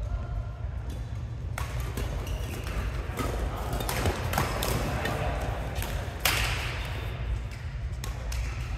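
Badminton rackets hitting a shuttlecock in a doubles rally: sharp cracks at irregular intervals, the loudest about six seconds in, each with a short echo of a large hall.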